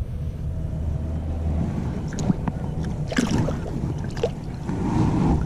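Wind rumbling on the microphone at the water's edge. From about two seconds in come scattered short knocks and splashes, most of them around the middle.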